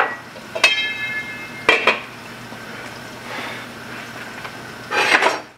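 Metal pot lid clanked onto a pot about half a second in, ringing briefly, then more clinks of cookware a second later and a louder clatter near the end.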